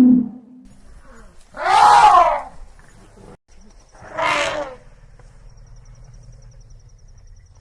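Elephant calling: a pitched call dies away at the start, then come two short, harsh trumpeting roars about two seconds apart.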